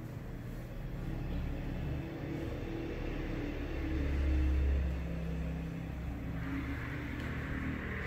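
Low engine rumble of a road vehicle going by outside, swelling to its loudest about four to five seconds in and then easing off.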